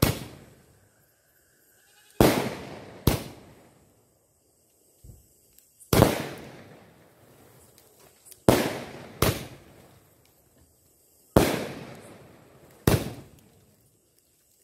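Aerial fireworks bursting in sharp bangs, about eight in all, coming every second or two and often in close pairs. Each bang trails off in an echo over about a second.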